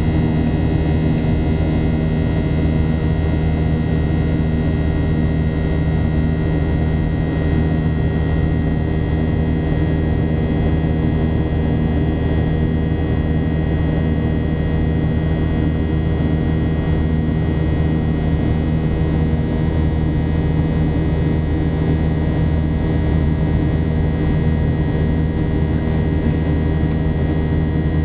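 Cabin noise of a Boeing 737 in flight, heard from inside the cabin: a steady, loud drone of the jet engines and airflow, with several steady whining tones running through it.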